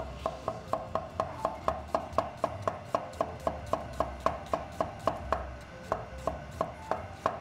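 Chef's knife chopping onion on a wooden cutting board in a quick, even rhythm of about four strokes a second.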